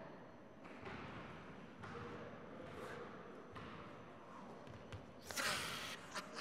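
German wheel (Rhönrad) rolling on a hardwood gym floor, its metal rings rumbling and thudding in rushing swells about once a second. Near the end comes a loud, noisy burst as the performer yells.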